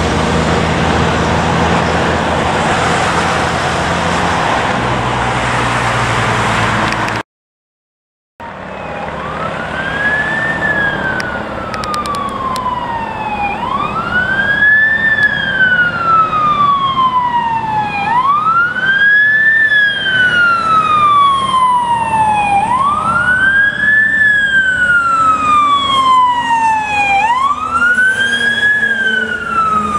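Fire engine running and driving off with road noise, then, after a brief cut, a fire truck's siren wailing: each cycle rises quickly and falls slowly, repeating about every four and a half seconds.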